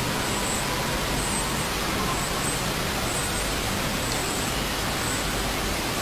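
Steady whooshing hiss of a running cryolipolysis and lipo laser beauty machine, with a faint short high-pitched tone pulsing about once a second.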